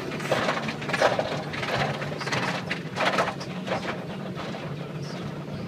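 Automatic car wash heard from inside the car: irregular rushing and crackling bursts as the washing equipment works over the body, over a steady low machinery hum.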